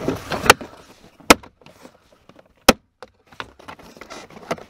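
Plastic push-pin clips snapping loose as a plastic interior side trim panel of a 2020 Ford F-350 is pried off by hand. A few sharp pops stand apart, the loudest about a second and a half apart, after brief rubbing of fingers on the plastic.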